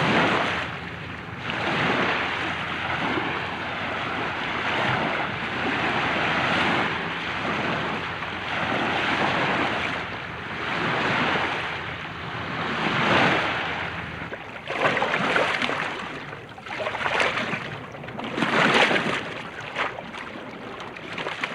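Light ocean waves washing in, rising and falling every couple of seconds, with a few sharper splashes late on.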